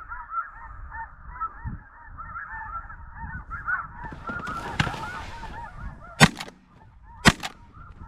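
Snow geese honking continuously, then two shotgun shots about a second apart. A brief rustle comes just before the shots.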